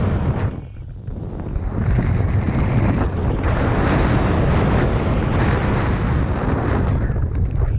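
Wind buffeting the microphone and tyres running over a dirt downhill mountain-bike trail at speed, with a brief lull of about a second near the start.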